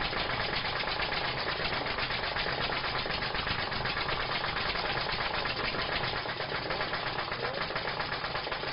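A small engine running steadily, with a fast, even knocking rhythm.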